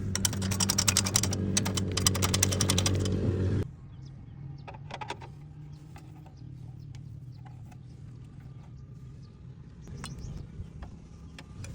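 Motorcycle drive chain rattling noisily with rapid metallic clicking over a steady low hum. The sound cuts off suddenly about three and a half seconds in, leaving faint scattered clicks. This is the chain noise problem on a new bike.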